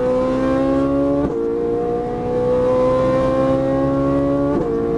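Ferrari 458 Italia's V8 engine accelerating hard, heard from inside the cabin: its note climbs steadily, drops sharply at an upshift about a second in, climbs again and drops at a second upshift near the end.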